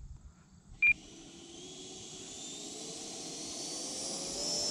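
A short beep about a second in, then the Freewing Avanti S's 80 mm electric ducted fan spooling up for takeoff: a whine that rises steadily in pitch and loudness as the jet begins its takeoff run.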